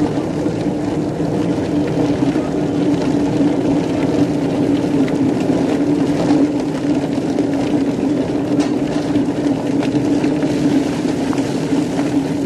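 Rotary drum chicken plucker running: its motor spins the base plate with a steady hum, tumbling chickens against the rubber plucking fingers, with a few faint knocks.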